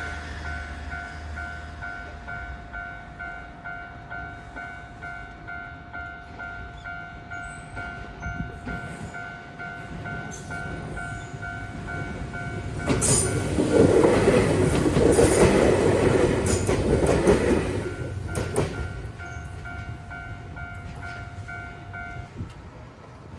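Japanese railroad crossing bell ringing its steady "kan-kan" at about two strikes a second. A train passes over the crossing from about 13 to 18 seconds in, loud with wheel clatter that drowns the bell. The bell stops a few seconds after the train has gone, near the end.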